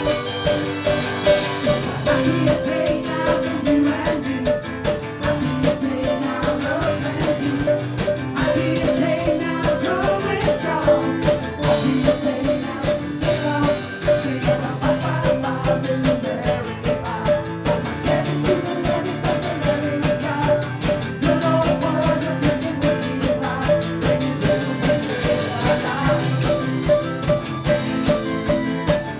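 Small band playing live: several guitars, acoustic ones among them, strummed over a drum kit keeping a steady beat.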